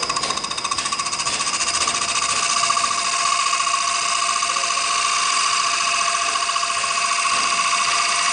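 CNC wood lathe running, its cutter working a spinning wood blank: a steady high whine with a fast flutter.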